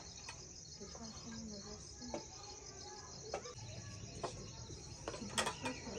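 Crickets chirping in a continuous, evenly pulsing high trill. Over it come several light clinks of a wooden spatula and dishes.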